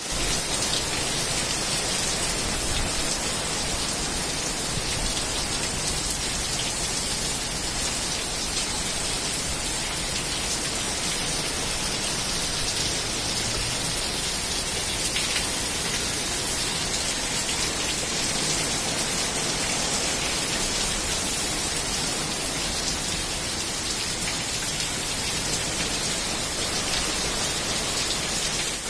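Heavy rain from Hurricane Dorian falling steadily: a dense, even hiss that doesn't let up.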